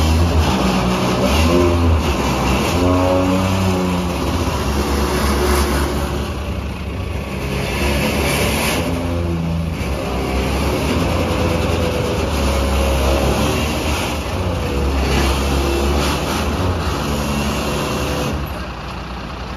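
Engine of a loaded dump truck running and revving repeatedly as it is worked into position, its pitch rising and falling several times, going quieter near the end.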